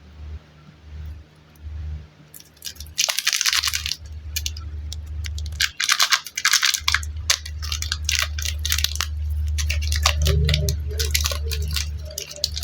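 Plastic packaging of super light clay crinkling and tearing open, in several crackly bursts, over a low hum that comes and goes.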